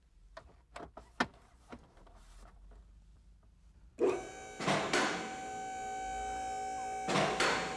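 A few light clicks, then about four seconds in the electric hydraulic pump motor of a four-post vehicle lift starts up and runs with a steady buzzing hum as it raises the truck. Two brief louder rushes come partway through.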